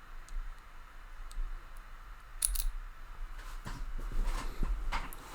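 Small metal clicks and light scraping of lock picks working in the keyway of a Master Lock No. 141 40 mm four-pin padlock, with a sharp double click about two and a half seconds in and a low rumble of the lock being handled.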